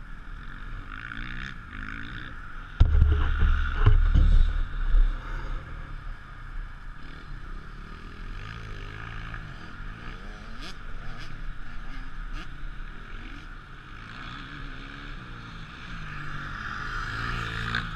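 Motocross bike engines revving up and down, their pitch rising and falling continually. A loud low rumble comes in about three seconds in and lasts about two seconds.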